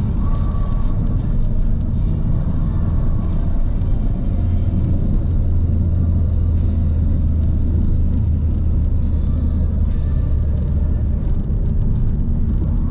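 Car engine and tyre noise heard inside the cabin of a Skoda Octavia driving on a snow-covered road: a steady low drone that strengthens in the middle and eases a little near the end.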